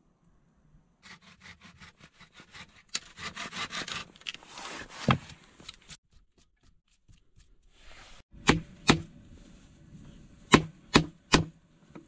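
Gloved hands rubbing and scraping over a mossy log, a run of quick scratchy ticks with a sharp knock about five seconds in. Then a hatchet strikes wood five times, sharp separate blows over the last four seconds.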